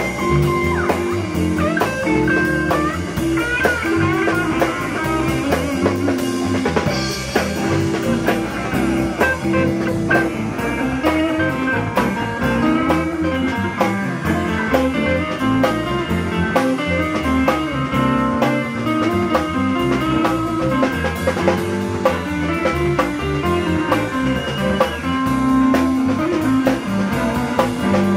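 Live blues-rock band playing: electric guitars with bending lead lines over bass guitar and a drum kit.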